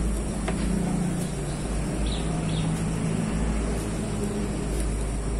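Steady low engine-like hum whose pitch shifts slightly, with a light click about half a second in.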